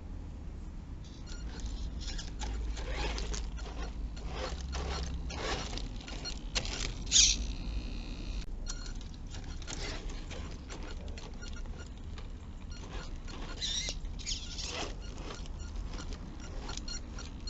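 Radio-controlled car driving through mud: irregular crackling, clicking and splattering over a low rumble, with one sharper crack about seven seconds in.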